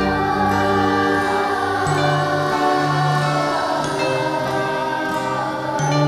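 Children singing a song with instrumental accompaniment, voices holding long notes.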